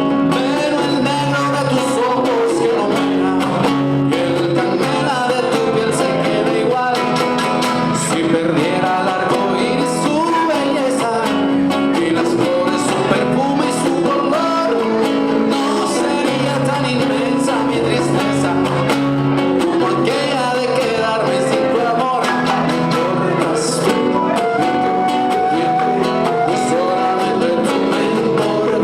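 Son cubano band playing: singing over plucked guitar and percussion, steady and loud.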